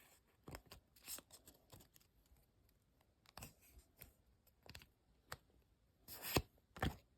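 Pokémon booster pack's foil wrapper and cards being handled and opened: scattered faint crinkles and scrapes, with a few louder rustles about six seconds in.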